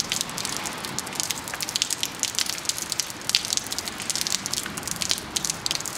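Steady rain, with many sharp, irregular drop ticks landing close to the microphone.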